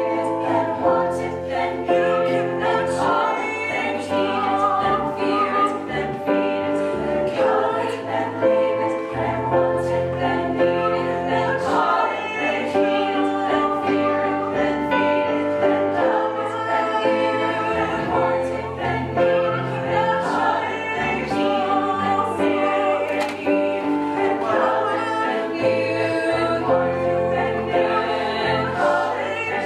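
Choir of women's voices singing a song in harmony, with low bass notes underneath that change every couple of seconds.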